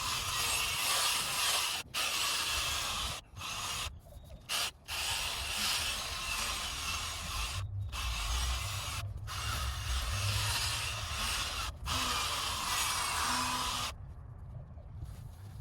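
Drill-driven abrasive sanding disc scuffing a plastic headlight lens: a steady rough hiss that stops and restarts several times in short passes, and falls away near the end.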